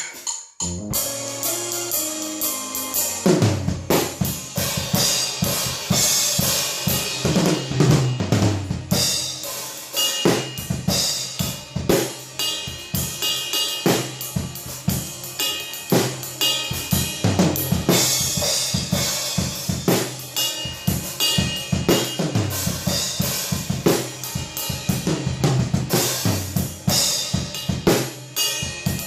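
Drum kit played in a practice jam, its cymbal and a drum's resonant head damped with Moongel gel pads. It opens with a run of low drum hits stepping down in pitch, then settles into a steady groove of bass drum, snare and cymbals.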